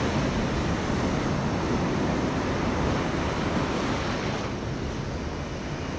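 Breaking surf and foaming seawater rushing around the hull of a small fibreglass fishing boat in the shallows, with wind buffeting the microphone. The rush eases slightly after about four seconds.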